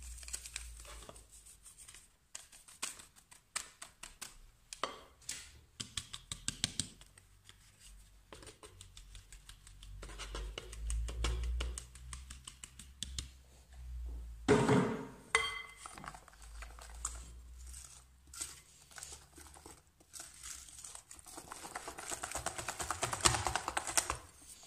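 Flour being sifted through a plastic sieve into a glass bowl: a spatula scrapes and taps the mesh and the sieve is shaken, in quick dry scratches, with one louder knock about halfway. Near the end a whisk beats the cake batter with a fast, steady rhythm.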